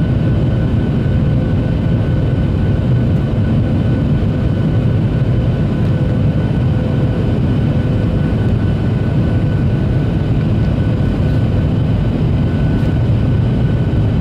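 Cabin noise of a Boeing 737-800 heard from a window seat over the wing during descent: a steady, loud low roar of airflow and the CFM56-7B turbofan engines. Faint steady whining tones sit over the roar.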